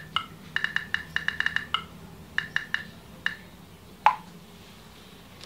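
Smartphone touchscreen keyboard tap sounds, quick runs of short pitched clicks as a message is typed, then about four seconds in a single short falling tone as the WhatsApp message is sent.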